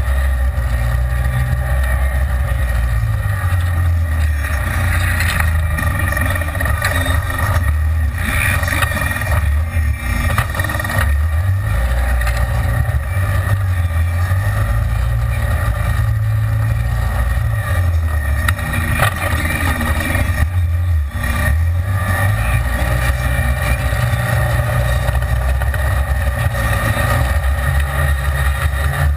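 Side-by-side off-road vehicle's engine running as it drives, heard from inside the cab: a loud low drone that swells and eases with the throttle, over steady rattle and wind noise.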